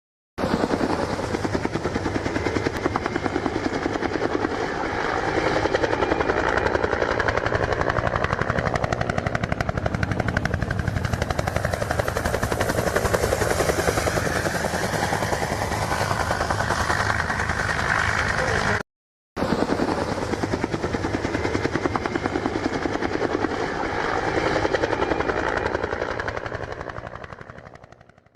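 Helicopter running, its rotor blades chopping in a fast, steady beat. The sound cuts out for a moment about two-thirds through and fades away at the end.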